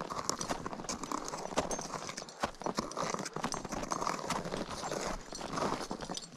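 Climber's crampon footsteps crunching on firm snow, step after step, with many sharp, irregular clicks.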